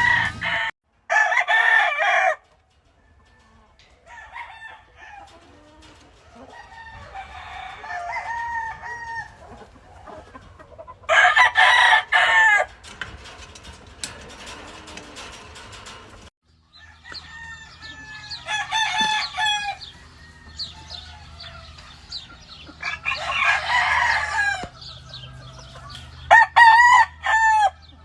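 Gamefowl roosters crowing one after another, about five loud crows of a second or two each, with quieter clucking and calls from other chickens in between.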